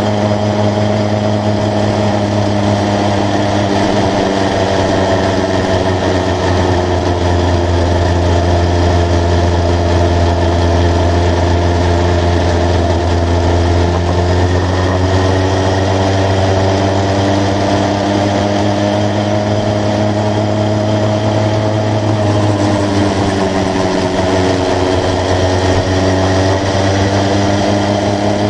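80cc motorised bicycle engine running steadily under way. Its pitch dips about halfway through and again near the end, then climbs back as it picks up revs.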